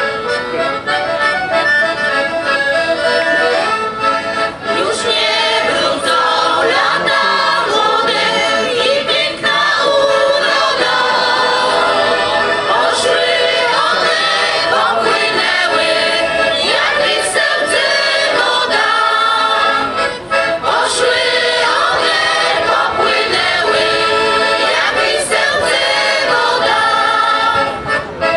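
Folk ensemble of women's and boys' voices singing a Polish folk song in unison with a piano accordion accompanying; the accordion plays alone at first and the voices come in about four seconds in.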